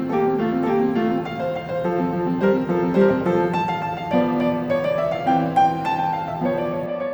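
Background piano music: a light, steady melody of short notes over sustained chords.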